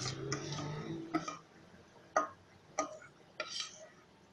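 Mixing bowl clinking and being scraped as thick cake batter is emptied out of it into a baking tin: a few sharp clicks about a second apart.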